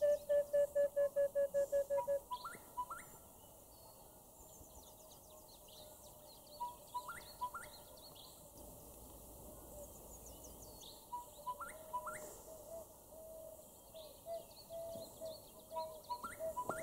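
Several wild birds calling. A rapid run of low whistled notes fills the first two seconds. After that, one bird repeats a phrase of a short note and two quick rising whistles about every four to five seconds, over high chirps from other birds, with a string of low whistles joining in near the end.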